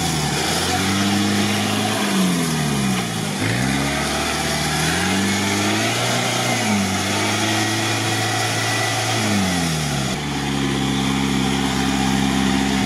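Modified UAZ off-roader's engine revving up and down several times as it strains to pull the truck through a deep mud rut.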